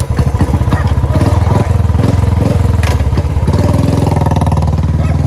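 Royal Enfield motorcycle engine running steadily as the bike is ridden, its note shifting slightly about three and a half seconds in.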